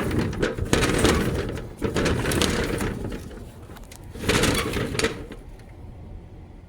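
An accordion storm shutter being worked in its track, giving rough scraping and rattling bursts: several in the first few seconds and a last loud one about four seconds in, then it dies down. The track is clogged with sediment.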